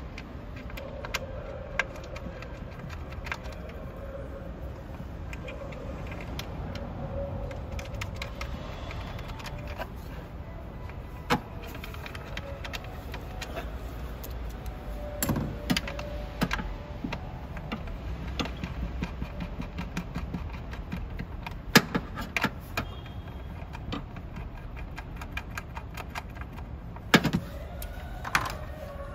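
Scattered light clicks and metallic clinks of hand work in an open car engine bay, refitting the accelerator cable, with a few sharper knocks among them, over a steady low rumble.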